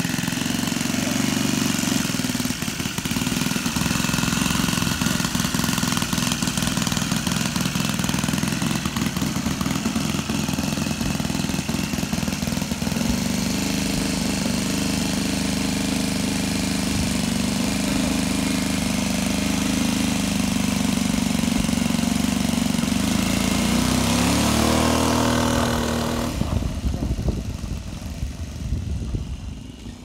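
Seagull Extra 300 RC model aeroplane's engine running steadily on the ground, then revving up with a rising pitch near the end before the sound drops away and turns fainter and more distant.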